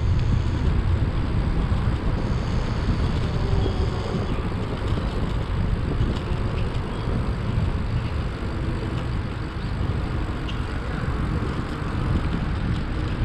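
Steady wind and road noise from riding a bicycle in traffic: a low rumble that eases a little after the first couple of seconds.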